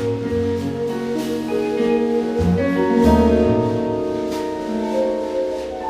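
Small jazz group playing: tenor saxophone, electric guitar, double bass, drum kit and piano together, with bass notes moving underneath and the drummer striking the cymbals.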